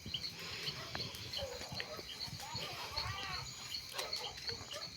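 Quiet outdoor night ambience: a small creature gives a high chirp that repeats evenly about two or three times a second. Faint distant calls and a few soft clicks sound around the middle.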